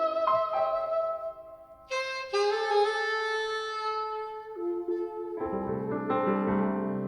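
Soprano saxophone playing long held notes of a slow jazz ballad over piano accompaniment. There is a short pause about a second and a half in, and fuller piano chords with low bass notes come in after about five seconds.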